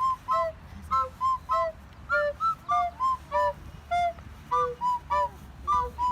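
Background music: a bouncy melody of short, high, whistle-like notes, about three or four a second.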